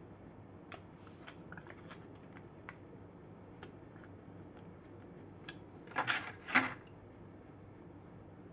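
Light handling of a die-cast model car's box and plastic packaging: scattered soft clicks and ticks, then two short rustling crinkles a little after the middle, the second the loudest.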